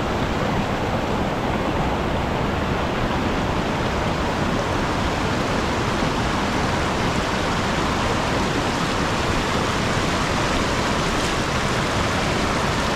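Sol Duc Falls' waterfall rushing with a steady, unbroken roar of falling water.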